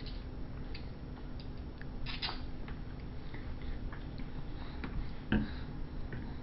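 Small clicks and taps of a baby's hands and a sippy cup on a plastic high-chair tray, with a cluster of clatter about two seconds in and one louder knock about five seconds in, over a steady low hum.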